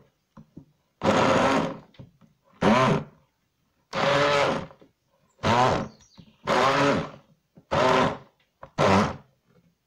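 Immersion (stick) blender run in seven short pulses in a tall plastic beaker, chopping raw carrot and pineapple chunks with a little water; the motor's whine rises and drops with each burst.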